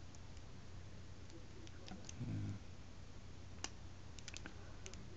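Faint, sharp metallic clicks of a lock pick and tension wrench working the spool pins of a Brinks high-security lock held in false set: single scattered clicks, then a quick run of three or four about four seconds in.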